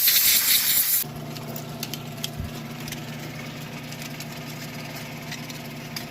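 A loud spraying hiss from cleaning the removed excavator swing motor cuts off abruptly about a second in. An engine then runs steadily at idle.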